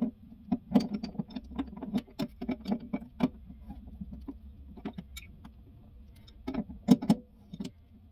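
Large crescent wrench clinking and knocking against a kitchen faucet's retaining nut as the nut is worked loose counterclockwise. A run of quick, irregular metal clicks fills the first few seconds, then a few sharper knocks come about two-thirds of the way in.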